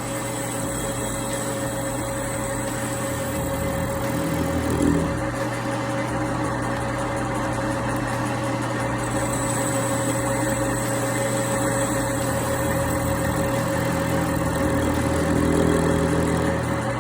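Metal lathe running steadily with its motor humming while a carbide tool turns a steel part; the carbide is worn and due for changing.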